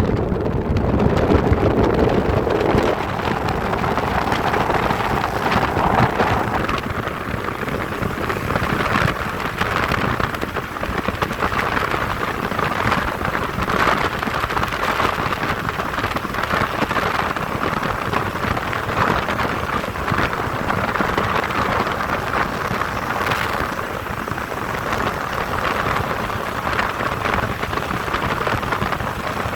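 Strong wind buffeting the microphone: a loud, steady rushing noise that swells and eases in gusts.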